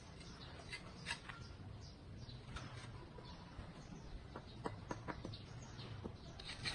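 Faint clicks, taps and scrapes of bricklaying: a trowel working mortar against clay bricks, with a quick run of taps past the middle.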